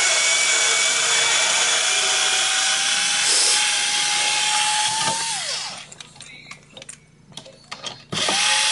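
Black & Decker lithium-ion cordless drill driving screws out of a wooden crate. Its motor whine climbs slowly in pitch and winds down a little over five seconds in. Light clicks and knocks follow, then a short second run of the drill near the end.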